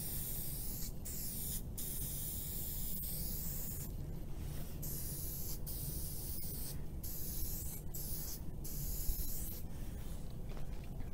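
Aerosol spray paint can spraying in repeated short bursts of hiss, each about half a second to two seconds long with brief breaks between, over a steady low rumble.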